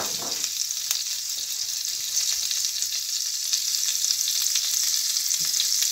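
Garlic butter sizzling as it melts in a hot non-stick frying pan: a steady high hiss with faint scattered pops.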